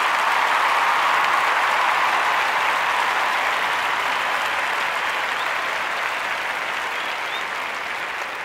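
Applause from a crowd, an even clatter of many hands clapping that slowly fades.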